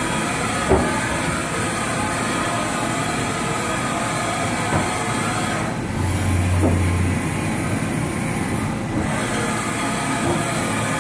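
2005 Haas VF-9/50 CNC vertical mill running under power with its table traversing: a steady machine whine and hum, with a brief deeper hum about six seconds in.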